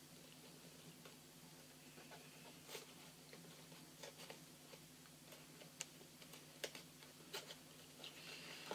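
Faint scattered clicks and short rustles of a small cardboard gift box being opened and its paper confetti packing handled, over a low steady hum.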